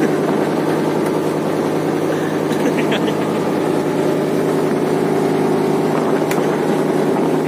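A fishing trawler's inboard diesel engine running steadily under way, a constant even drone with no change in speed.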